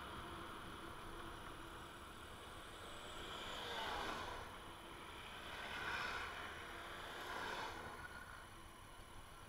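Muffled riding noise from a Honda Africa Twin motorcycle on a rough, broken road, rising in a swell of noise about four seconds in as it passes close by a truck, with two smaller swells later.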